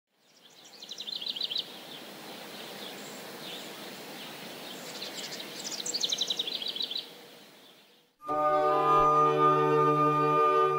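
A songbird sings twice over a steady background hiss, each song a quick run of repeated high notes. About eight seconds in, this gives way abruptly to instrumental music with held chords over a low sustained note.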